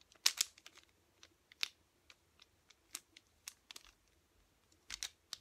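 Plastic layers of a 3x3 mirror cube being turned by hand, giving irregular sharp clicks and clacks in quick clusters as the final U-perm algorithm is executed.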